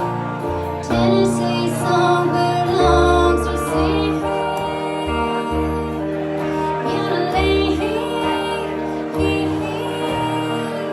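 A woman singing a song live over acoustic guitar; her voice comes in about a second in.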